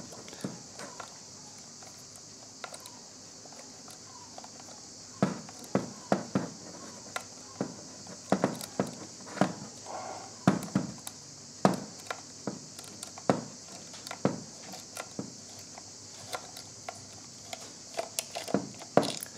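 Small screwdriver working a stiff screw out of a plastic RC transmitter case. Irregular sharp clicks start about five seconds in as the bit grips and the screw gives, and the hands shift the housing, over a steady hiss.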